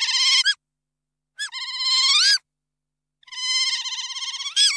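Otter vocalizing: high, rapidly trilled chirping squeals in three separate calls. One ends about half a second in, the next comes around two seconds in, and a longer one starts about three seconds in; each flicks up in pitch at its end.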